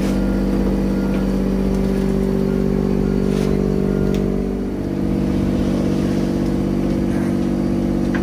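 Motor engine running at a steady pitch, with a brief dip in loudness about halfway through before it settles back.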